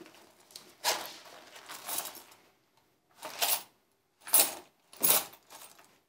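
About five short rustling handling noises, a second or so apart, as small things are picked up and shifted in the hands, with near quiet between them.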